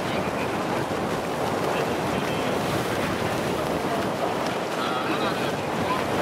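Steady rush of wind on the microphone over choppy water, heard from a boat.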